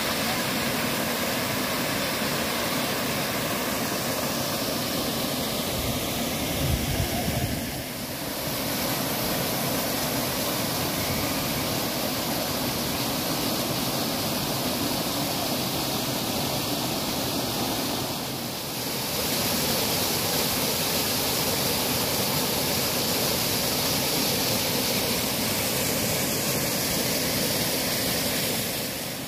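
Waterfall and stream water pouring over granite rock into pools: a steady rushing noise that shifts in character twice as the view moves between cascades. A brief low rumble comes about a quarter of the way through.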